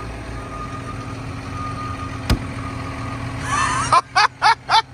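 John Deere 6250R tractor's six-cylinder diesel idling steadily with a faint steady whine, and a single sharp click a little over two seconds in. Near the end come five loud short sounds in quick succession.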